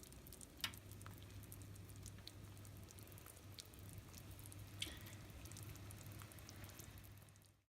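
Pot of chicken soup simmering: faint bubbling with scattered small pops, two slightly louder ones, over a low steady hum.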